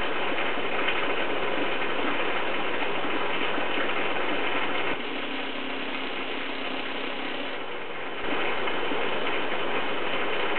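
Steady, dense crackling rattle of running aquarium equipment, a little quieter between about five and eight seconds in.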